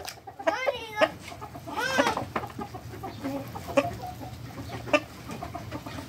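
A rooster clucking: two loud calls about a second apart in the first two seconds, then softer clucks.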